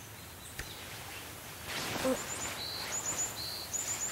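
Small birds chirping in short, high, repeated calls over a soft rustling background that grows louder about halfway through.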